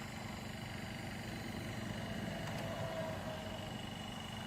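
Diesel engine of an asphalt paver running at a steady pace, a low, even drone as the machine moves along.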